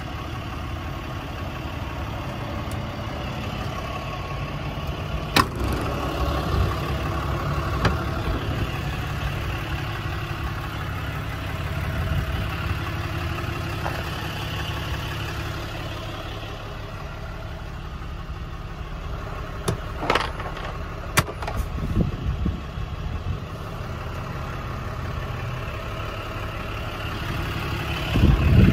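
Ram 5500's 6.7-litre Cummins straight-six turbo-diesel idling steadily, with a few sharp clicks and knocks over it and a louder thump near the end.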